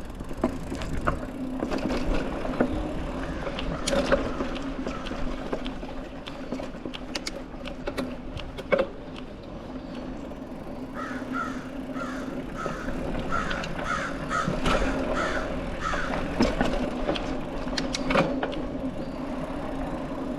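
Mountain bike rolling over a dirt trail: steady tyre noise with frequent knocks and rattles as the bike goes over bumps and roots. About halfway through, a bird calls repeatedly for around five seconds.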